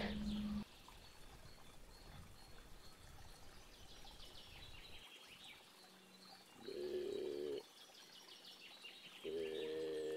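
Faint birdsong chirping in a quiet forest, then two low, steady, drawn-out calls near the end, the second longer, about a second and a half.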